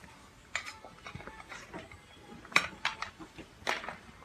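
A handful of sharp plastic clicks and clacks as a power cord's plug is handled and knocks against a tile floor, the loudest a little past halfway.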